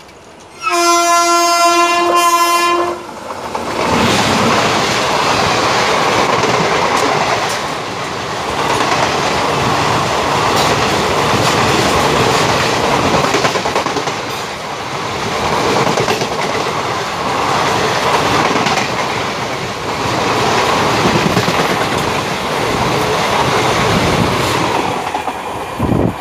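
A train horn sounds one blast of about two seconds, then a train runs on the rails with a loud steady rumble and wheels clattering over the rail joints.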